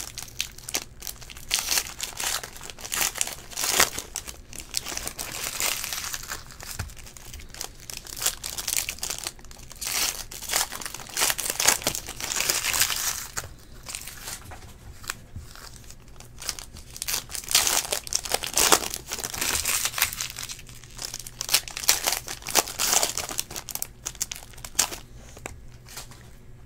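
Trading-card pack wrappers crinkling and tearing as packs are ripped open, and cards being handled, in irregular bursts of rustling.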